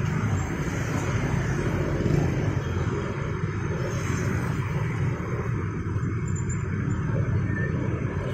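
Road traffic, mostly motorcycles with a car and a truck, crossing the tracks close by with engines running in a steady low rumble.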